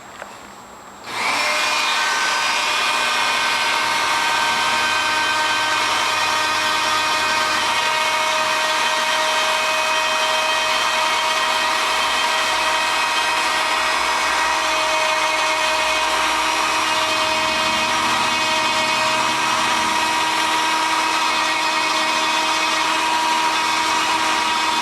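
Dremel rotary tool starting about a second in and then running steadily with a whine of several steady tones, its fine Cratex rubber-bonded abrasive wheel grinding down the solder seam inside a ring.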